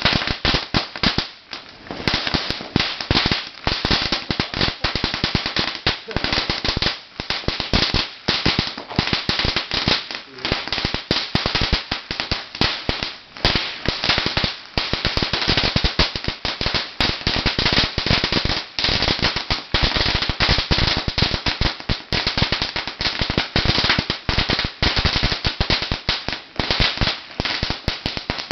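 A 50,000-cracker string of red paperless firecrackers going off in a rapid, continuous crackle of sharp bangs, with a few brief lulls.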